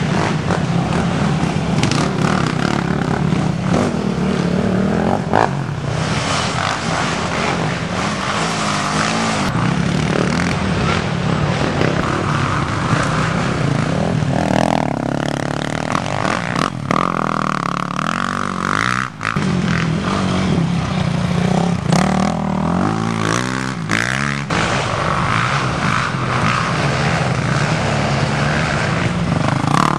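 Racing quad (ATV) engines running hard and revving as the quads race past, loud and continuous, their pitch rising and falling with the throttle.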